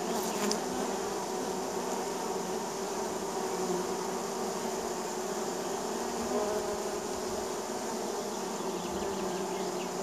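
Many honey bees buzzing at a hive entrance, their wingbeats blending into a steady hum with several held tones. A brief sharper sound comes about half a second in.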